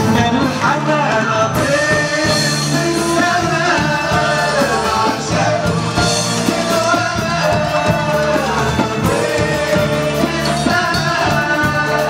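Live Arabic band music: a male voice singing over an ensemble with frame drums and other instruments.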